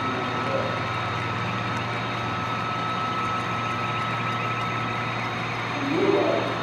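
HO-scale model freight train running past, with a steady diesel-engine-like rumble and hum, a thin steady whine above it, and a brief louder swell about six seconds in.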